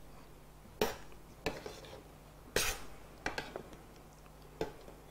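A metal ladle clinking against a stainless-steel pot as curry is stirred and scooped out: about six sharp knocks, spread irregularly over a few seconds.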